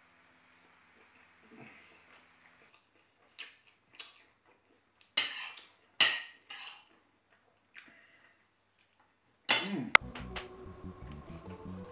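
Metal fork and knife clinking and scraping on a ceramic plate of rice and chicken, in short scattered strokes with two louder scrapes about halfway through. Near the end, background music starts.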